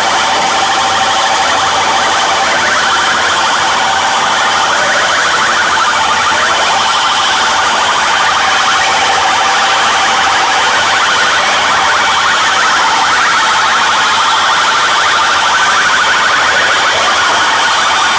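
Live electronic noise music played on mixers and effects units: a loud, unbroken wall of harsh hiss with wavering, siren-like tones running through it.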